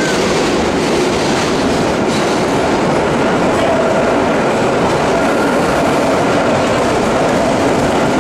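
Vintage subway car running along the track, heard from inside the car as a loud, steady noise of wheels and car body.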